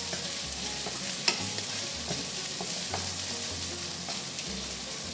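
Bacon and mixed vegetables sizzling in a nonstick wok as a wooden spatula stirs them, with a steady frying hiss and a few light taps and scrapes of the spatula on the pan.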